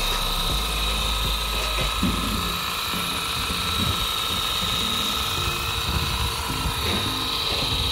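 Cordless 20 V battery pressure washer (NRT JC25DC) running at its 25-bar high-pressure setting: the pump motor gives a steady high whine under the hiss of the water jet.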